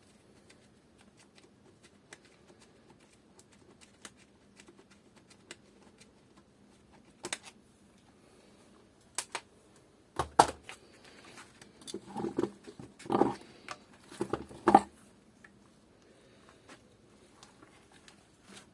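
Work on an engine's inlet manifold with hand tools: scattered light clicks, then from about ten seconds in a few seconds of loud metal knocks and clatter as tools and parts are handled.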